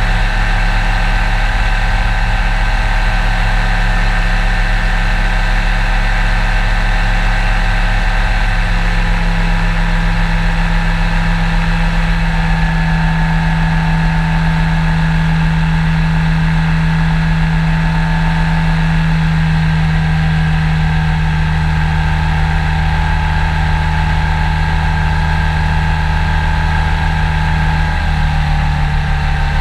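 Powered parachute's engine and propeller running steadily in flight, heard close up from the airframe behind the pilot. The engine note steps up slightly a few times, about a third of the way in and again near the end.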